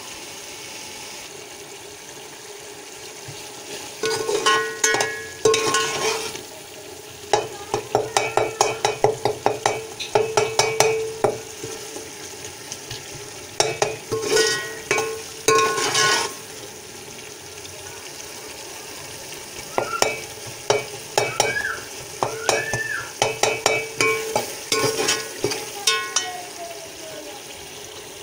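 Steel slotted spoon scraping and knocking against a pot while tomatoes are mashed into a sizzling masala. There are four spells of rapid clicks and scrapes over a steady frying sizzle.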